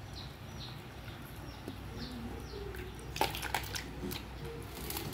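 Blanched squid tipped from a metal strainer into a basin of ice water: a short splash and clatter about three seconds in. A low steady hum and faint repeated bird chirps run underneath.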